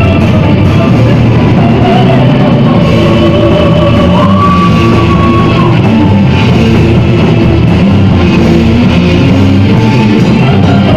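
Gothic metal band playing live, with electric guitar and drum kit, loud and dense; a long held high note sounds for a couple of seconds about four seconds in.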